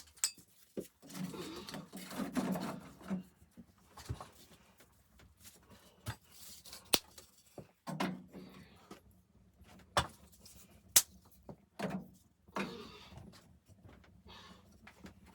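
Indoor handling noises: scattered sharp clicks and knocks, the loudest about ten and eleven seconds in, between stretches of rustling, like objects of wood and gear being moved about.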